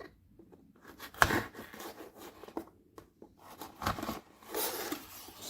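A package being unpacked by hand: irregular rustling and crinkling of packing material with scattered light clicks and taps, one sharp click about a second in.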